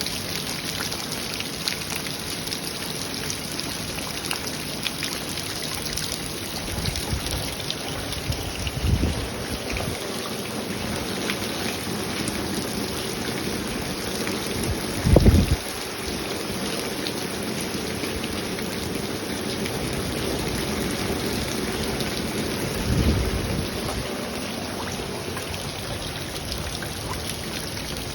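Heavy rain pouring down in a steady hiss. Three short, low rumbling thumps cut through it, the loudest about halfway through.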